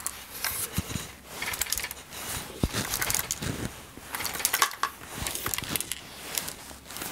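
A Fuxtec FX-KS262 chainsaw being turned over and handled, with irregular light clicks and clatter from a small loose part rolling around inside it: the detached retaining piece of the fuel tank cap.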